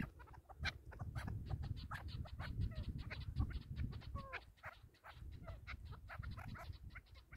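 Decoy chukar partridges calling from their cages: a rapid, continuous run of short, sharp clucking notes, several a second, with wind rumbling on the microphone.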